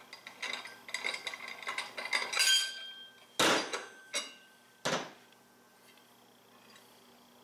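Metal clinking and scraping as a T-handle clutch puller is unscrewed and lifted off a primary clutch, with ringing metallic tones, then three sharp metal knocks, the first the loudest, as the tool and a small part are set down on the workbench.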